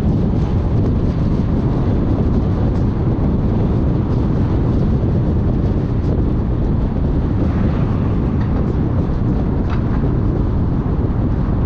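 Steady low rumble of a car driving, the tyre and engine noise of a moving vehicle, with a faint tick about ten seconds in.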